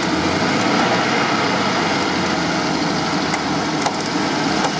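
UAZ Patriot off-roader's engine running under load as it crawls through a deep mud pit on a taut winch cable, with the tyres churning thick mud and water. The noise is loud and steady, with no sudden change.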